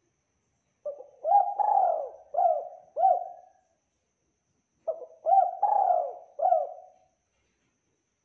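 Spotted dove (tekukur) cooing: two phrases of several rising-and-falling coos each, about four seconds apart.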